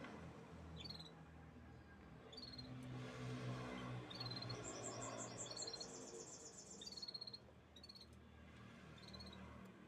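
Canaries chirping: short high chirps about once a second, with a fast, very high trill lasting about two and a half seconds in the middle.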